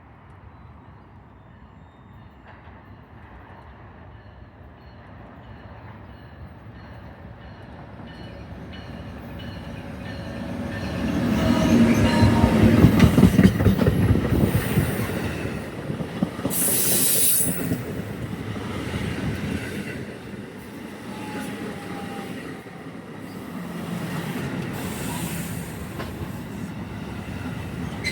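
NJ Transit commuter train approaching and running past on the rails. The rumble swells to its loudest about halfway through, a brief high-pitched wheel squeal comes a few seconds later, and the noise then continues at a lower level.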